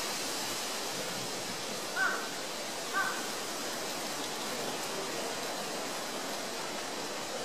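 Steady hiss with two short, high-pitched animal calls about a second apart.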